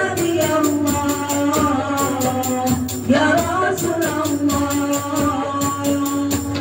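A hadroh ensemble of girls singing together through microphones in long, gliding held notes, over a steady quick beat of frame drums and jingling percussion.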